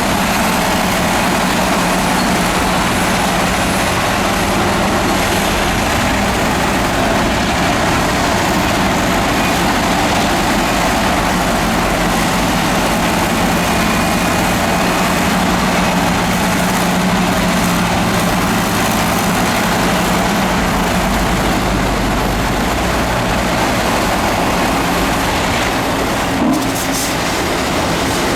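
Diesel engine of heavy earthmoving machinery running steadily under load, with a dense mechanical rattle over a steady low hum, and a short click near the end.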